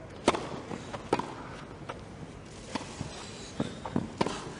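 Tennis rally on a grass court: a serve, then sharp racket-on-ball hits about a second apart, with softer ball bounces and players' shoes on the grass between them.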